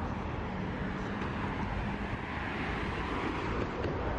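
Steady outdoor city noise: a constant rumble of road traffic.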